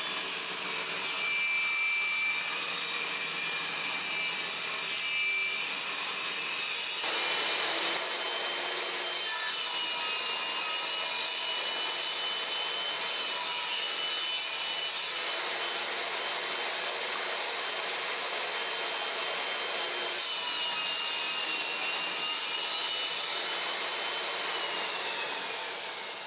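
Benchtop table saw running with a steady motor whine as its blade cuts boards, ripped along the fence and crosscut on a sled. Near the end the saw is switched off and the whine falls as the blade spins down.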